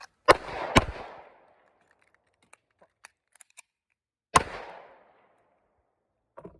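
9mm compact pistol shots outdoors: two shots about half a second apart, then a few faint clicks of a magazine change, then one more shot about four seconds in. Each shot rings off afterwards. This is a shot, reload, shot drill.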